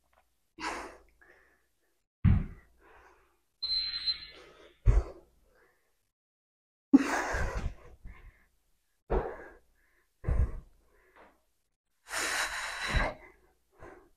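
A woman breathing hard after an intense set of leg exercises: several loud gasping breaths and sighs, with a few short thuds in between.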